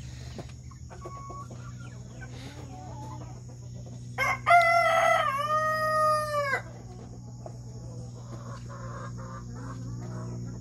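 A rooster crowing once, about four seconds in: one call of roughly two seconds that holds its pitch and then drops at the end.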